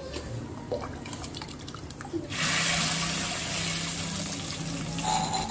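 Shallots frying in oil in a clay pot, stirred with a wooden spatula in faint scattered ticks. About two seconds in, liquid is poured from a steel bowl into the hot pot: a sudden, loud, steady pouring splash that goes on for nearly three seconds.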